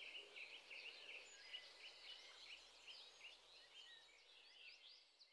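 A chorus of small birds chirping and twittering, many short quick calls overlapping, fading out near the end.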